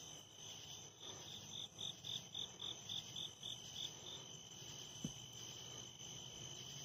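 Night insect chorus of crickets trilling steadily at a high pitch. A nearer cricket chirps about four times a second for roughly three seconds, and one sharp tap comes about five seconds in.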